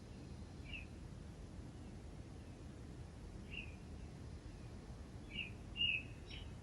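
Bird chirping outdoors: short single chirps spaced a few seconds apart, then a quicker group of three near the end, the middle one the loudest, over a steady low background noise.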